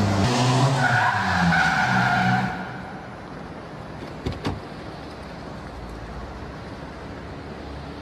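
Ken Block's Ford Fiesta competition car driven hard, its engine note shifting up and down, with a high tyre squeal through the first couple of seconds. The sound drops away sharply about two and a half seconds in, leaving a quieter steady background noise with a couple of brief knocks.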